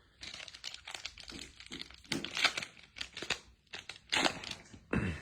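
The plastic wrapper of a pack of trading cards being torn open and crinkled: an irregular run of crackles, louder in a few spots.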